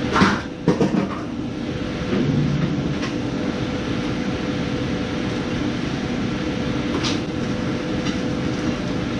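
Steady mechanical hum with a faint constant tone running through, and a few sharp knocks: two within the first second and one about seven seconds in.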